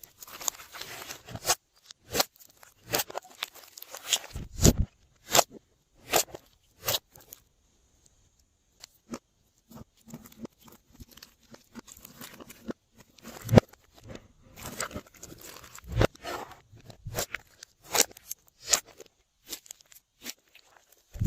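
Glossy slime being mixed by hand, making irregular sticky clicks and pops, with a brief pause about eight seconds in.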